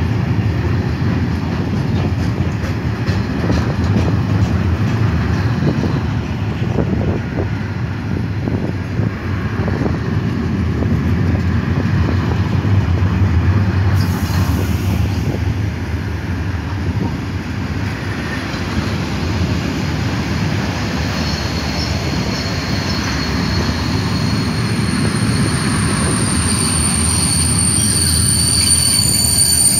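Freight train of flat wagons loaded with steel passing close by: a loud, steady rumble of wheels on rail with scattered clicks over the rail joints. A high, steady squeal comes in about two-thirds of the way through and grows louder toward the end.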